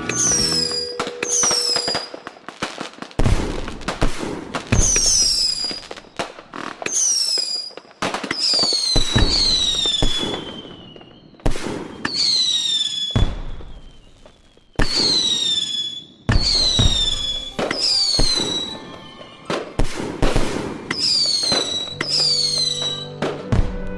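Fireworks going off in quick succession: repeated sharp bangs, each with a shrill whistle that falls in pitch. Music plays under the opening second and again near the end.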